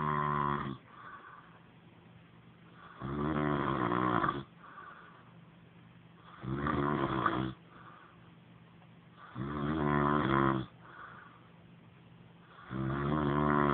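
A man snoring in his sleep: a loud, buzzing snore on each breath in, about every three and a half seconds, with a softer breath out after each.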